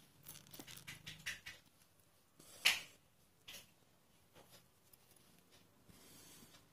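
Faint rustles and ticks of a needle and embroidery thread being drawn through cloth stretched taut in a wooden embroidery hoop, with one louder short scrape a little before the middle.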